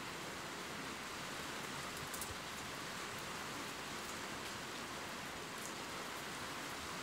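Steady rain falling, an even hiss with a couple of faint drop ticks.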